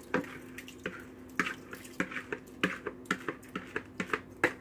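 A spatula scraping and knocking a wet rice-and-diced-tomato mixture out of a mixing bowl into a slow cooker's plastic liner: a dozen or so short, irregular scrapes and wet plops, over a faint steady hum.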